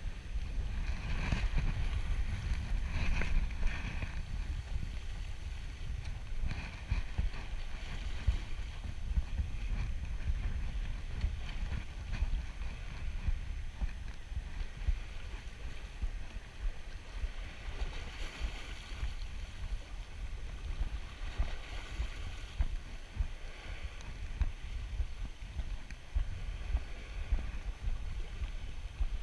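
Wind rumbling on the microphone over sea washing against a rocky shore, with a spinning reel being wound in now and then as a lure is retrieved.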